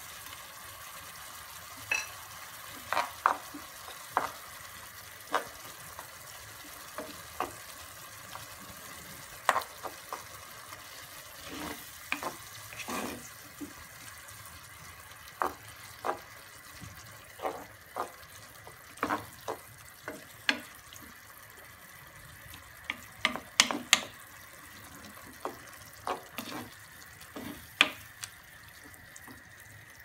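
Wooden spoon stirring a simmering tomato, pepper and pea base in a nonstick pan, knocking and scraping the pan in irregular sharp clicks, over a steady low sizzle.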